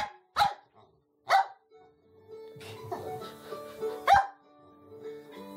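Shetland sheepdog barking in several short, sharp barks, with background music playing under them.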